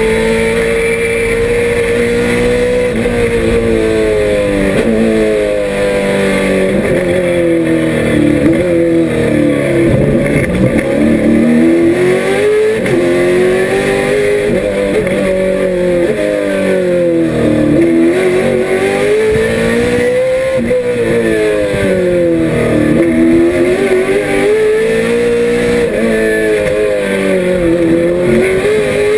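1968 Trans-Am Camaro race car's small-block Chevrolet V8 at racing speed, heard from inside the cabin, its revs falling and climbing again several times as the car slows and accelerates around the track.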